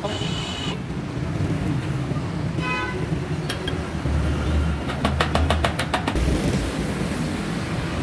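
Street traffic: a motor vehicle rumbling past with short horn toots, one right at the start and another about three seconds in. About five seconds in comes a quick run of roughly eight sharp taps.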